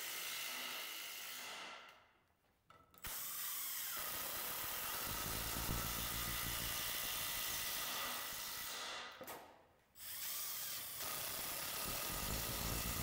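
Makita XDI16 cordless impact driver hammering long Spax wood screws into softwood timber, a steady pounding whirr. It is broken twice by a brief silence, about two seconds in and again about nine seconds in.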